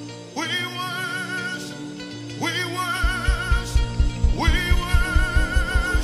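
Male lead vocalist singing long held notes with vibrato, sliding up into each new phrase, over a live worship band's sustained chords. About halfway through, a steady low beat comes in under the voice.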